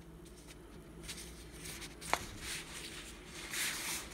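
Quiet rustling of oiled phyllo pastry sheets being handled and folded, with a single light click about two seconds in and louder rustling near the end.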